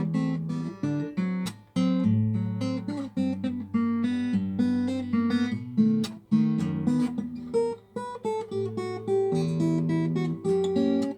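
Acoustic guitar playing a calm instrumental piece: plucked melody notes over ringing bass notes, with brief pauses between phrases.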